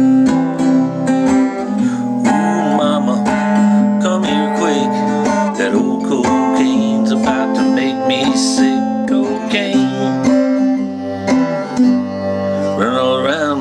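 Orpheus Valley Perfect Scale parlor guitar, x-braced and strung with Martin Silk & Steel strings, played alone: a run of plucked notes over sustained bass notes.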